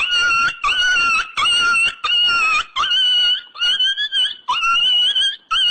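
Comedy sound effect: a high-pitched squeak repeated about eight times, each one sliding up sharply and then holding its note for about half a second.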